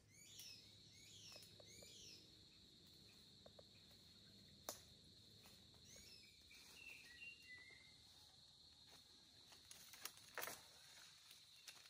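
Near silence with faint natural ambience: small birds chirping in short repeated calls, over a steady high insect drone. Two faint crackles from feet on dry bamboo litter, about midway and near the end.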